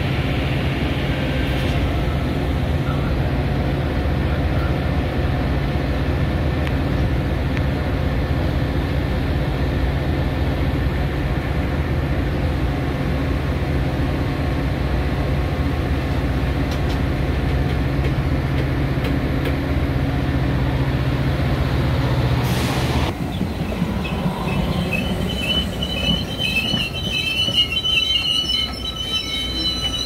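Metra bilevel commuter train rolling along the platform: a steady rumble with a low drone. About 23 seconds in the sound changes abruptly to another train, and high, wavering squeals come in over the last few seconds as it brakes to a stop.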